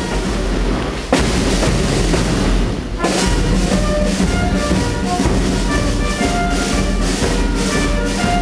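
Boys' Brigade marching band of side drums, bass drum and bugles playing. For the first three seconds the drums play alone, with a sharp beat about a second in. Then the bugles come in with held notes of a march tune over the drumming.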